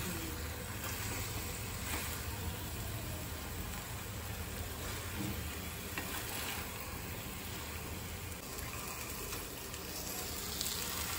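Thick egg roast masala sizzling steadily in a metal kadai over a gas flame, with a few light scrapes of a steel spoon as it is stirred.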